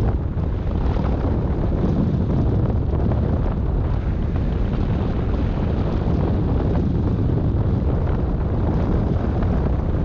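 Steady, loud rumble of airflow buffeting the microphone of a camera mounted on a hang glider in flight.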